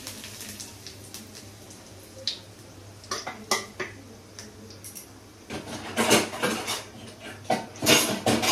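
Metal kitchen utensils and pots clinking and clattering. A few scattered clinks come first, then a busier clatter of strikes in the last three seconds.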